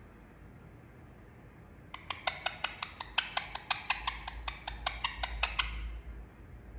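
Indian ringneck parakeet making a rapid run of sharp, wood-block-like clicks, about five or six a second, for roughly four seconds.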